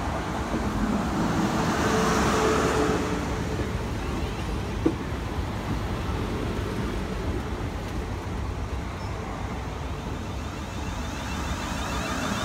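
South Western Railway Class 450 Desiro electric multiple unit pulling in along the platform and running slowly past close by. It is loudest a few seconds in, with a brief pitched whine then and a single sharp click about five seconds in.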